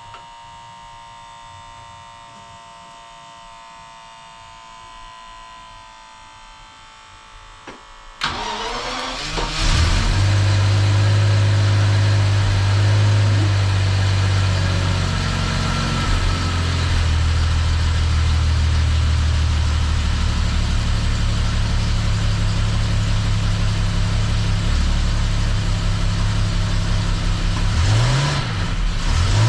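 Jaguar XJS V12 engine started after an overhaul: a faint steady electric whine, then about eight seconds in the engine cranks and catches, then runs loudly and steadily at idle, with a brief dip and rise in engine speed near the end.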